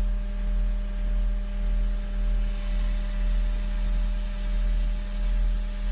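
Skid steer engine running steadily, a low hum whose loudness swells and fades in a regular rhythm.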